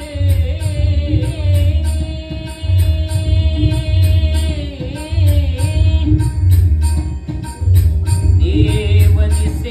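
A man singing a Marathi devotional abhang in a classical Indian style, holding one long ornamented note that wavers up and down, then starting a new phrase near the end. Under the voice runs a steady accompaniment of deep drum strokes and evenly repeated jingling cymbal-like clicks.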